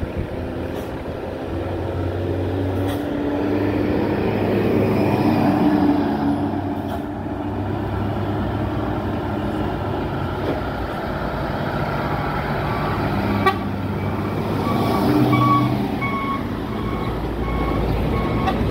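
Heavy road traffic of buses and trucks passing on a highway, the engine noise swelling and fading as each goes by. In the second half a vehicle horn sounds a run of short, evenly repeated toots.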